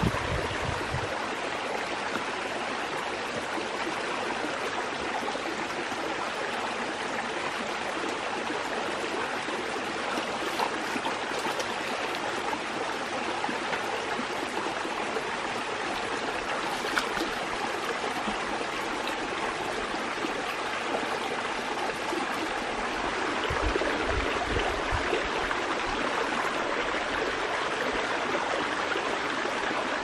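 Shallow rocky forest stream flowing steadily, a constant watery rush. A few low thumps come near the start and again about three-quarters of the way through.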